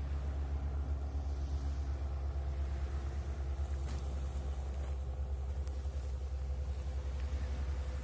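Steady low rumble with a faint hum under the soft wash of small waves on a sand-and-pebble beach.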